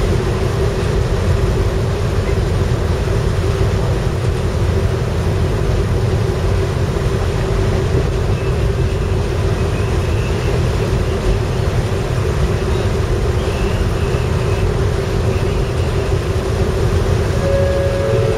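Steady low rumble of a ferry's machinery with a constant hum over it. Near the end comes a short two-note tone, the second lower than the first.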